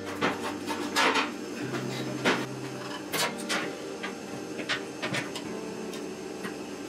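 Irregular metallic clinks and knocks as a steel shaft with its ball bearing and a gear puller are handled and set against a steel workbench, the puller's jaws being fitted behind the bearing on the grinder motor's armature shaft.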